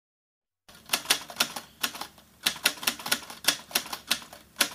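Typewriter key clicks laid under text being typed onto the screen: an irregular run of sharp clacks, about three or four a second, starting just under a second in and stopping near the end.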